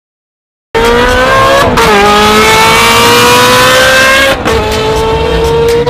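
Ferrari F430's V8 accelerating hard at high revs, starting suddenly after a moment of silence. Its pitch climbs steadily and drops sharply with an upshift twice, near two seconds in and again near four and a half seconds.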